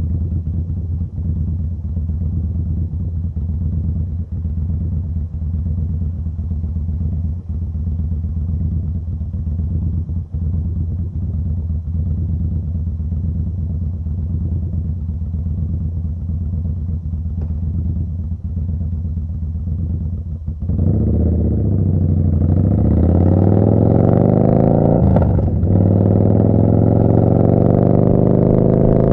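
Yamaha Bolt's air-cooled V-twin through a Vance & Hines slip-on exhaust, running steadily at low, unchanging revs. About two-thirds of the way in, it gets louder and the revs climb as the bike accelerates, with a brief break a few seconds later at a gear change before the revs rise again.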